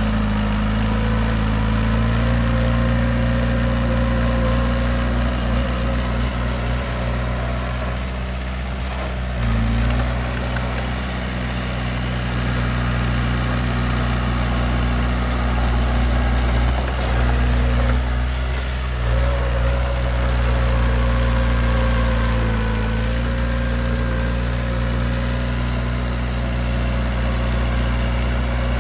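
Heavy diesel engine of earthmoving machinery running steadily, its note shifting briefly a few times as the load changes.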